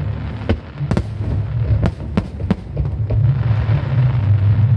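Aerial fireworks shells bursting: a quick run of sharp bangs in the first half, over a continuous low rumble of further explosions that swells toward the end.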